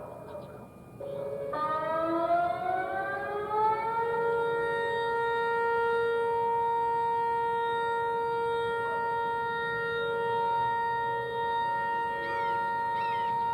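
Homemade tornado siren winding up, its pitch rising for about two and a half seconds, then holding one steady tone.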